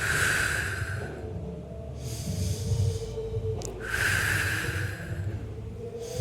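A person breathing forcefully in time with dumbbell row repetitions: a sharp exhale at the start and another at about four seconds, each on the pull of the row, with a quieter inhale between them.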